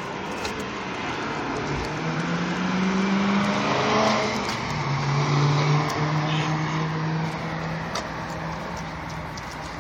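BMW E92 M3's V8 engine as the car passes by. The engine note climbs in pitch as it approaches and drops as the car goes by about four seconds in. It then holds a steady note while pulling away and fading.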